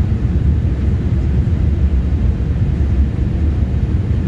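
Boeing 787-8's Rolls-Royce Trent 1000 engines and airflow heard from inside the cabin over the wing on final approach, just before touchdown: a loud, steady low rumble.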